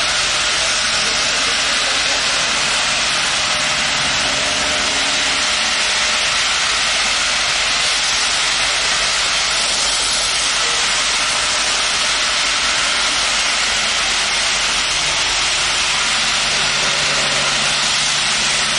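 Union Pacific Big Boy No. 4014 steam locomotive starting away with steam blowing from its cylinder cocks: a loud, steady hiss.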